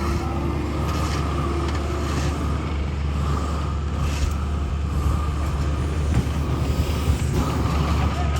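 Heavy asphalt-paving equipment engines running: a steady low drone, with a higher whine that comes and goes and scattered knocks.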